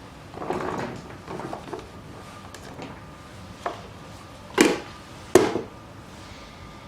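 Handling of a plastic vegetable chopper: a couple of brief scraping rustles, then three sharp knocks, the last two louder and close together near the end.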